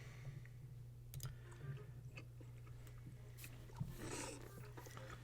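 Faint close-miked mukbang eating sounds: scattered wet mouth clicks and chewing, with a short louder chewing burst about four seconds in, over a steady low hum.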